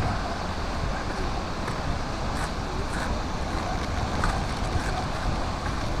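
Steady rushing of the Seljalandsfoss waterfall, with wind rumbling on the microphone.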